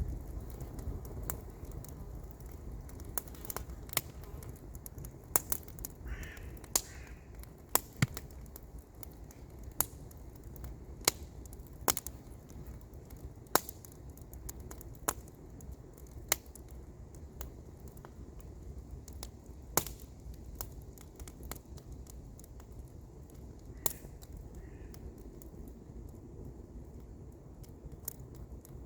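Campfire wood crackling, with sharp irregular pops about once or twice a second over a low steady rumble.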